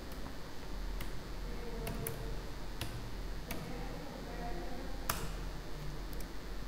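Computer keyboard keystrokes typing a few characters: about eight separate sharp clicks at irregular intervals, over a faint steady hum.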